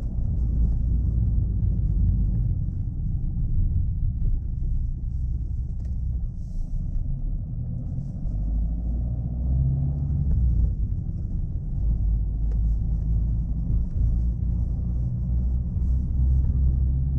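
Chevrolet Aveo driving along: a steady low rumble of engine and road noise.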